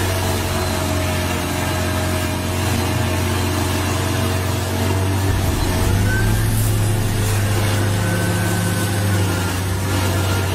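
Stump grinder's engine running steadily under load while its spinning cutter wheel grinds into a tree stump, with a continuous noisy hash from the cutting.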